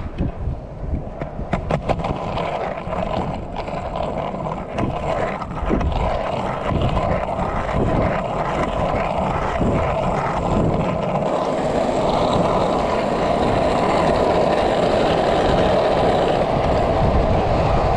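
Skateboard wheels rolling over coarse asphalt: a steady rumble that grows louder as the board picks up speed, after a few sharp clicks and knocks in the first couple of seconds.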